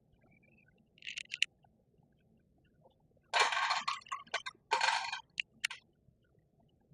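Handling noises: a few sharp clicks and two short bursts of rustling, from a .22 pistol, its magazine and cartridges being handled.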